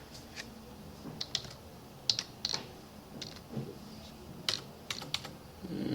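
Computer keyboard keys clicking: scattered, irregular keystrokes, about nine in all.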